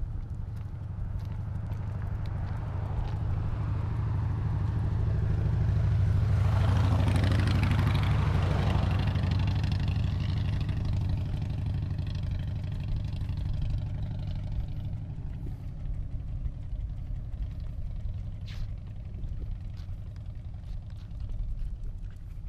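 A car passing on the road alongside, growing to its loudest about seven seconds in and fading away by about fifteen seconds, over a steady low rumble.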